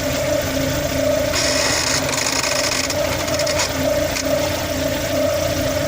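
Lada Vesta AMT robotized-gearbox clutch actuator creaking and rasping for about two and a half seconds, starting about a second and a half in, as the gearbox is shifted to neutral. The engine idles steadily underneath. The squeak comes from the actuator's moving parts wanting lubrication.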